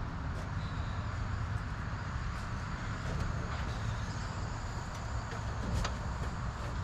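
Steady low background rumble with a few faint light clicks or taps, the clearest near the end.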